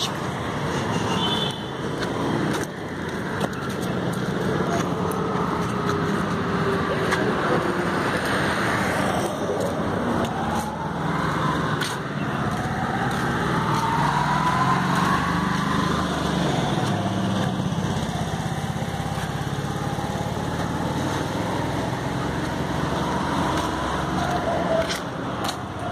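Steady road-traffic noise with engines passing, and a tone rising slowly in pitch through the middle.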